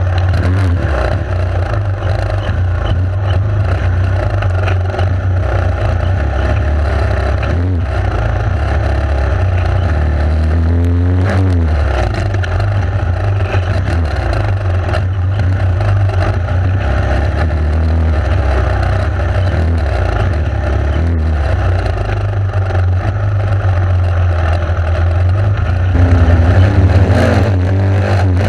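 Enduro motorcycle engine running under way, its revs rising and falling as the rider works the throttle, loudest near the end, over a steady low rumble.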